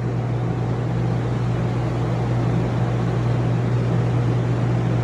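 Giant drying fans running with a loud, steady hum and rushing air.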